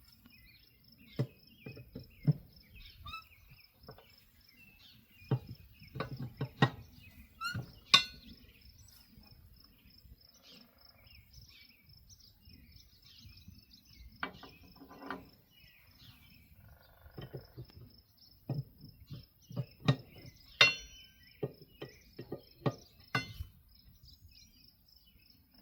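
A cricket chirps steadily in a fast pulsed trill, while irregular metallic clinks and knocks come from a 4-way lug wrench being worked on the trailer wheel's rusty lug nuts, the sharpest about 8 seconds in.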